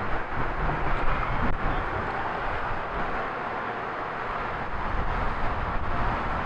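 Streetcar turntable slowly turning with a single-ended vintage streetcar aboard: a steady mechanical rumble with a few faint clicks.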